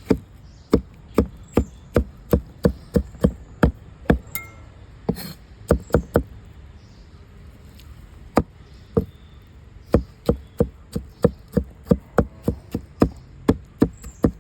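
A blade chopping repeatedly into the husk of a fresh king coconut: sharp, separate strikes, two or three a second, with a pause of about two seconds midway.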